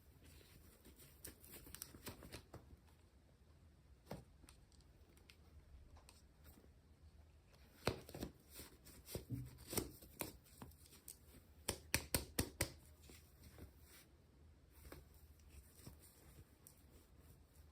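Quiet handling noises of hands unboxing small items: scattered light taps and clicks, with a quick run of about six sharp clicks about twelve seconds in.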